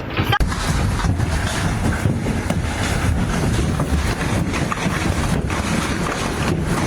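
Large hail pelting down in a violent storm: a dense run of hard impacts over a loud rumble of wind buffeting the microphone, starting abruptly about half a second in.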